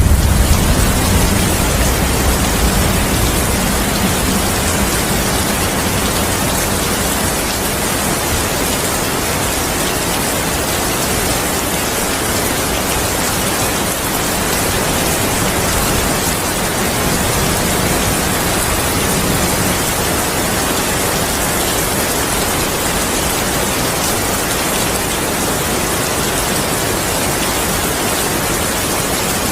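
Heavy rain falling steadily in an even hiss. A low thunder rumble is dying away in the first couple of seconds.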